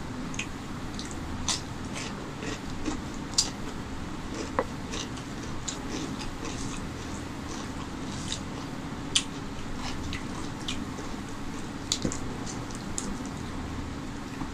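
Bare fingers mixing basmati rice with chicken curry on a steel plate: scattered small wet squishes and clicks at an uneven pace, over a steady low hum.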